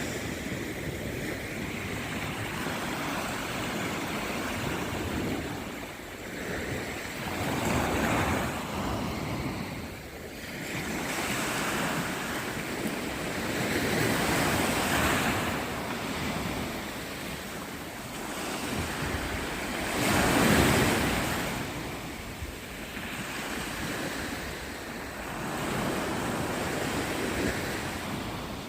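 Black Sea surf: waves breaking and washing on the shore, surging and falling back every several seconds, the biggest surge about two-thirds of the way through, with wind on the microphone.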